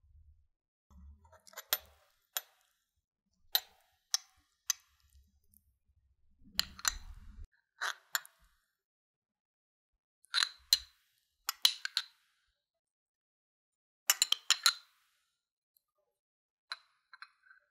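Light clinks and clicks of a spoon against a small glass container, in scattered short clusters, with a few soft thuds, as chunky tartar sauce is spooned onto crumbed pork cutlets.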